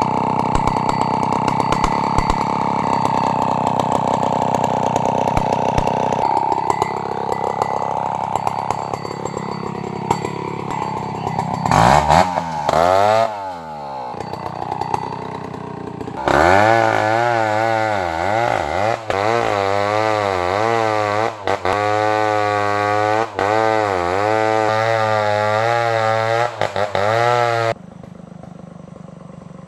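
STIHL 070 two-stroke chainsaw running at full throttle while cutting wood. Its pitch swoops sharply about twelve seconds in, then rises and falls over and over, about once a second, as the engine is loaded and revved in the cut. The sound cuts off suddenly near the end.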